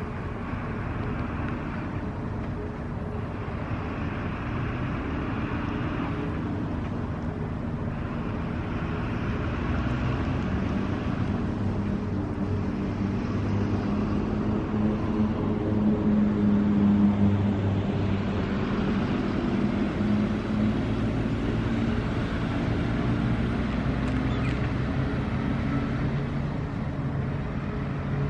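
Low, steady engine drone from the machinery of an inland cargo ship working its deck crane to lift a car; it grows a little louder about halfway through.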